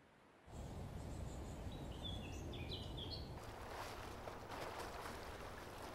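Lakeside outdoor ambience that starts suddenly about half a second in: a low wind rumble, a bird giving a few short chirps in the middle, then soft water lapping and splashing against the dock and boat hulls.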